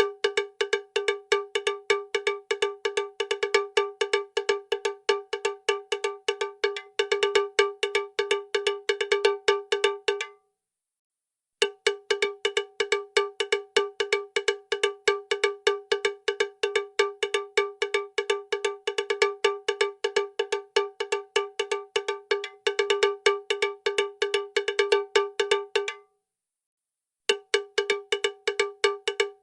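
A small metal bell struck rapidly and steadily, several strikes a second with a bright ringing tone. It stops twice for about a second, then starts again the same way.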